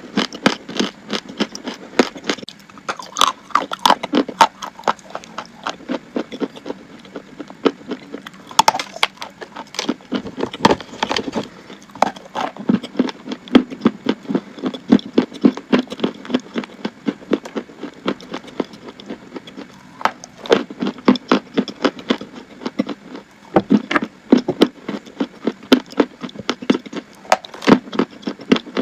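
Crunchy chalk being bitten and chewed close to the microphone: a dense run of sharp crunches and cracks, several a second, with a few short pauses between mouthfuls.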